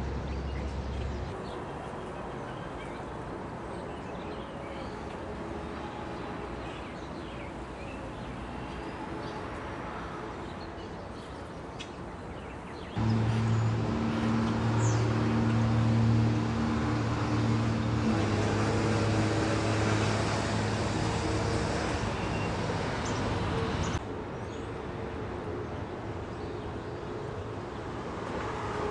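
Birds chirping over a low, steady engine hum. About halfway through, a louder motor comes in suddenly, runs steadily for about ten seconds with a change of tone partway, then cuts off.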